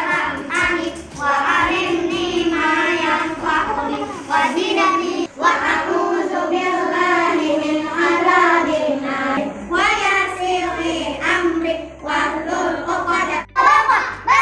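A group of young children singing together, a sung prayer.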